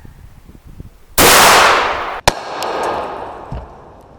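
A single loud shot from an H&R single-shot 20 gauge rifled slug gun firing a half-ounce slug, about a second in, ringing out and fading over about a second. About a second after it comes a sharp crack, followed by a rumble that fades away.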